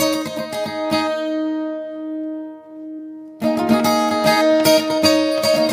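Acoustic guitar played without singing: picked and strummed notes, then a chord left ringing and fading for about two seconds before the strumming starts again sharply.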